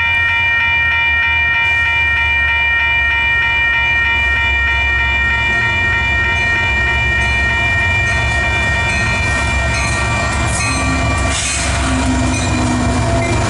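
Union Pacific diesel locomotives passing close by, their engines a steady low rumble under a steady high-pitched air horn held for about eleven seconds. After the horn stops, the clatter of the locomotives and loaded ballast cars going past takes over.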